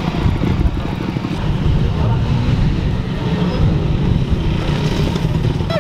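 Motorcycle engine running close by, a rough low rumble that rises and falls in level.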